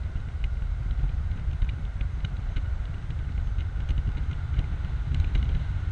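Open-top BMW Z4 2.5i under way: a steady low rush of wind buffeting the open cabin and microphone, with the car's 2.5-litre straight-six engine and tyre noise beneath it. Scattered faint ticks run through it.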